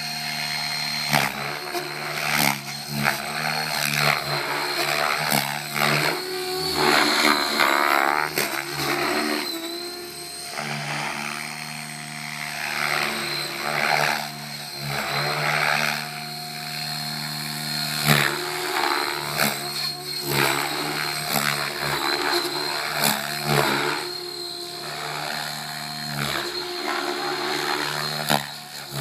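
Align T-Rex 700E Pro DFC electric RC helicopter in flight: a steady high whine from the electric motor drive under the whoosh of the rotor blades, which swells and fades repeatedly as the helicopter manoeuvres.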